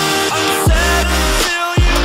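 Electronic music with a steady beat and deep bass hits that slide down in pitch, twice.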